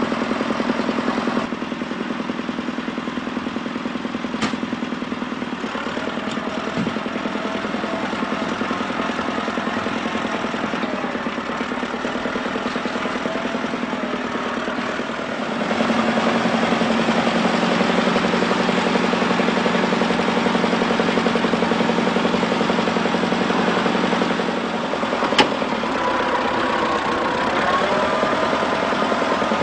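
Diesel engine of an orange crawler tractor running steadily while it works to pull a stuck SUV out of the lake shore, growing louder partway through. Two sharp clicks stand out.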